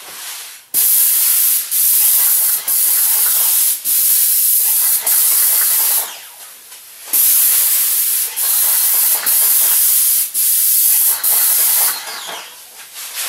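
Airless spray gun spraying sealer onto a ceiling: a loud, high-pitched hiss in long passes, broken by brief gaps and a pause of about a second midway, stopping near the end.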